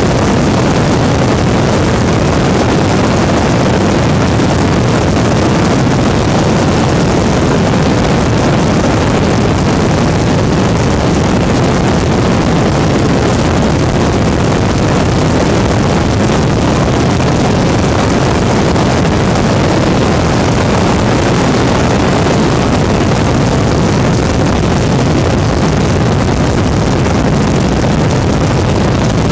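Weedhopper ultralight aircraft's two-stroke engine running steadily in flight, mixed with wind rushing over the microphone.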